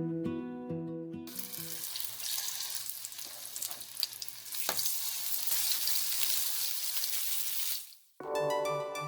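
Food sizzling in a hot frying pan, a steady hiss lasting about six seconds with a single tick midway, cut off abruptly. Guitar music fades out just before it and keyboard music starts right after.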